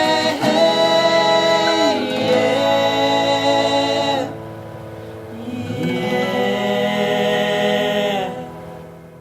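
Intro music of held sung chords, thinning out about four seconds in, swelling again, then fading out near the end.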